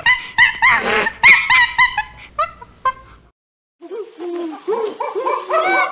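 A primate's short yelping calls in quick succession, each rising then falling in pitch, breaking off about three seconds in. After a brief silence a new run of calls starts, lower at first, with higher arched calls near the end.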